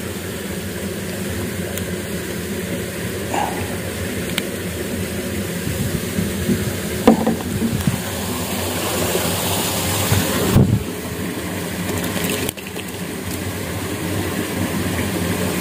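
Steady low mechanical hum, like a motor running, under a noisy haze, with a few brief knocks and a short louder rush about two-thirds of the way through.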